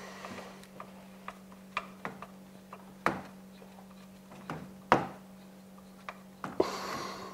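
Scattered clicks and knocks of tools and metal parts as the screws of a vacuum solenoid valve block are fastened in a car's engine bay. The two sharpest knocks come about three and five seconds in, over a low steady hum.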